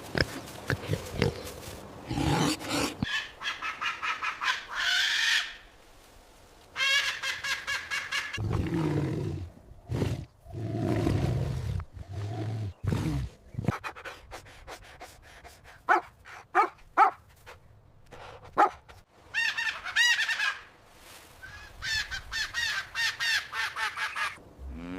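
A series of recorded animal calls, one after another with short gaps: several high, pitched calls and a run of deeper, lower calls in the middle.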